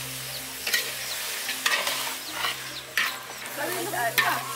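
A metal ladle scraping and clanking against a large wok as skinned frogs are stir-fried, with about four strokes a second or so apart over a steady sizzle of hot oil.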